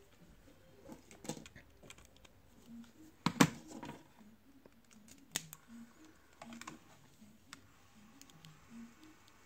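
Handling noise of a cassette Walkman and its cable on a wooden desk: scattered clicks and knocks of plastic and a jack plug, the loudest knock about three and a half seconds in.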